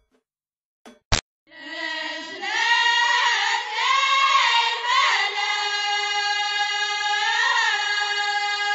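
A sharp click about a second in, then ahwach singing in Amazigh (Berber) folk style: a long sung line that rises and falls in pitch, then settles on one long held note.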